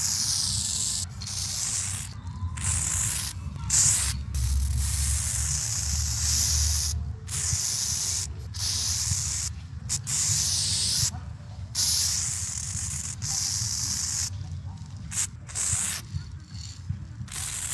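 Aerosol spray-paint can hissing in a string of separate bursts, each stroke a second or two long with short breaks between, as paint is sprayed onto a wall. A steady low rumble runs underneath.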